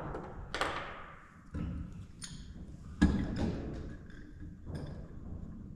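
Several separate knocks and thumps of lumber and tools being handled, the loudest about three seconds in.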